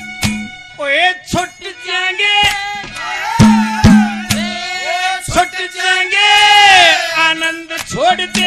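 Haryanvi ragni sung by a man through a microphone and loudspeakers, his voice gliding through long held notes, with the longest and loudest held about six to seven seconds in. A drum strikes sharply several times in the first five seconds.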